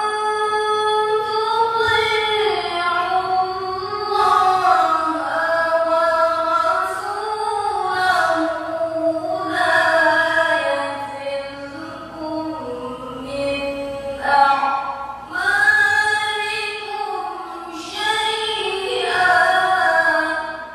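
A woman reciting the Qur'an melodiously into a microphone, in long held phrases whose pitch bends up and down, with short breaks for breath between them; the phrase stops at the very end.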